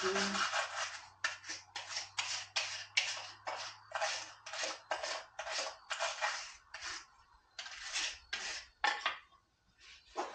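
Rhythmic scrubbing or wiping strokes on a chainsaw being cleaned of poison ivy oil, about two strokes a second, stopping shortly before the end.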